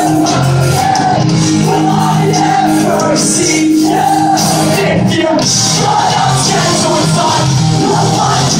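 Pop-punk band playing live: loud distorted electric guitars, bass and drums with shouted singing. It is heard from the audience in a large hall.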